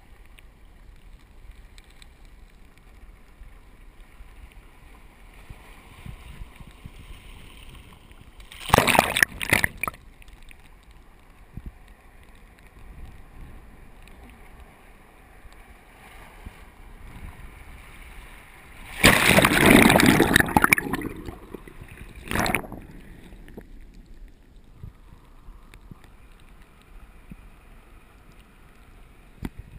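Surf washing into a rocky tide pool over a camera at the waterline: a low steady wash of water broken by two loud splashing surges, a brief one about nine seconds in and a longer one around twenty seconds in, with a short splash just after it.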